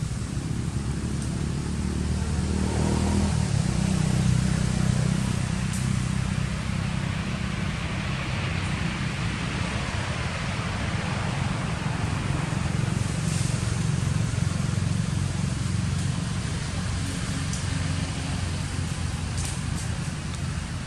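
A steady low motor rumble, swelling a little a few seconds in, with a few faint high clicks over it.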